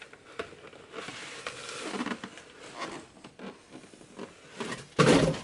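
Rustling and scattered clicks of packaging being handled as a mini fridge is unpacked from its box, with one short loud rustle or bump about five seconds in.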